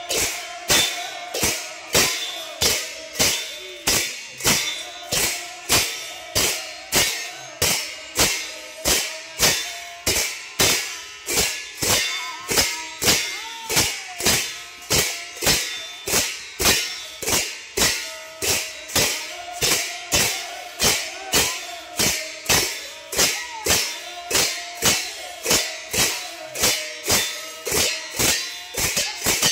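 Large brass hand cymbals clashed in unison by a group of players, keeping a steady beat of about two clashes a second, each clash ringing briefly.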